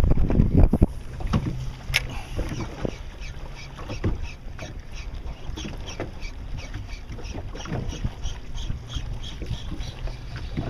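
Wind and water lapping around a small boat at sea, over a steady low hum from the boat. It opens with about a second of loud rumbling handling noise as the phone brushes clothing, and in the second half a run of faint, quick, regular ticks comes in.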